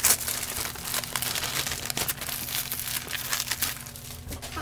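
Packaging crinkling and rustling as a parcel is unwrapped by hand. A dense run of small crackles starts sharply and thins out near the end.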